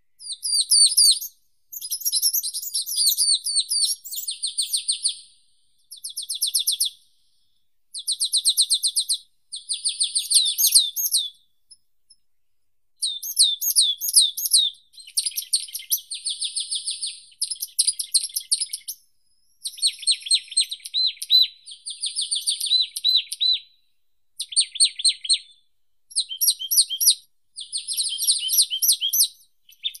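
Songbirds singing: many short, high-pitched phrases of rapidly repeated notes, each a second or two long, with brief pauses between them.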